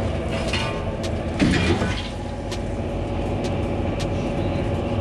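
Footsteps clanking on the metal treads of a fire escape on the way down, over a steady drone of city noise, with a louder clatter about a second and a half in.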